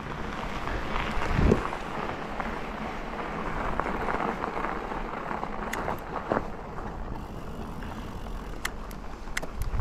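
Fischer Montis full-suspension electric mountain bike being ridden over rough ground: steady tyre and wind noise, with a few sharp clicks and knocks in the second half.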